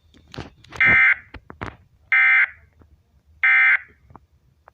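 Three short EAS end-of-message data bursts (the SAME 'NNNN' code), each a buzzy digital warble just over a second apart from the next, with faint clicks between them. They signal the end of the relayed NOAA Weather Radio weekly test alert.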